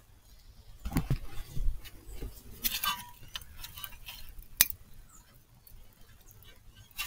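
Scattered small metallic clicks and rattles of a gloved hand working parts loose on a car's front strut and knuckle, with one sharp click about four and a half seconds in.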